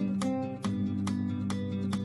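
Background music led by guitar, with strummed chords at a steady beat of about two strokes a second over sustained low notes.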